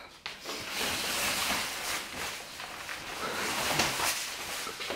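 Rustling of a jacket's fabric as it is pulled on and shrugged over the shoulders, an uneven hissing rustle that fades out just before the end.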